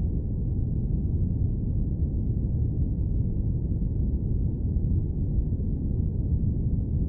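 Steady, deep airplane-cabin noise: an even low rumble with no high hiss and no changes.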